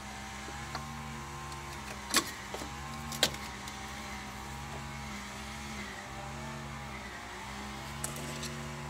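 A steady low engine-like hum that swells and dips about once a second, with two sharp metallic clicks about two and three seconds in, as hand tools work on the thermostat housing of a Dodge Ram's 5.7 Hemi.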